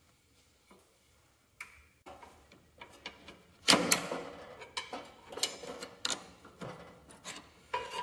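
A metal hydraulic quick-coupler being pushed and worked into its mounting bracket on a Cub Cadet 782 tractor frame: metal scraping and rubbing on metal with sharp clicks. It is faint at first, gets busier about two seconds in and is loudest near the middle.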